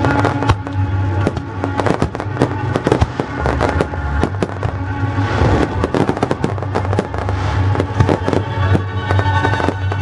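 Aerial fireworks display: shells bursting in quick, irregular succession with crackling, with music playing underneath.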